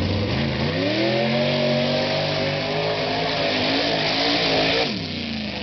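Lifted pickup truck's engine revving hard as it launches through a mud pit, with the tyres churning and throwing mud. The engine pitch climbs steeply over the first second or so and holds high, then drops off sharply near the end as the driver lets off.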